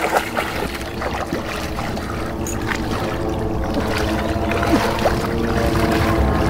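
A steady engine-like drone that grows louder, with a few splashes of hands churning shallow muddy water, mostly in the first second.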